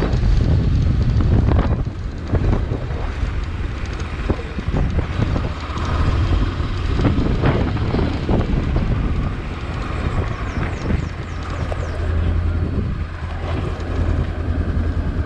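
Honda CB500X's parallel-twin engine running as the bike rides over cobblestones, with wind buffeting the microphone and many short knocks and rattles from the front end. The knocking from the steering area is a fault that the owner has not yet traced; a mechanic found nothing loose.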